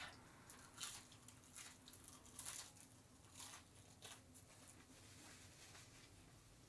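Faint, scattered crunches and rustles of McDonald's chicken nuggets being picked from a pile, bitten and chewed, most of them in the first few seconds.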